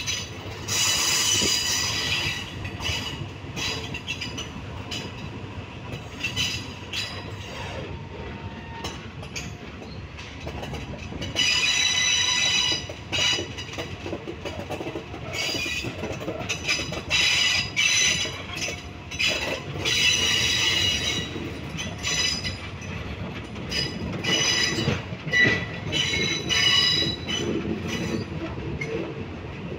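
Train wheel flanges rubbing against the rails, squealing and creaking in several separate bursts as the train leaves the station. Under the squeals runs the rumble and clatter of the carriage rolling over the track, heard from aboard the train.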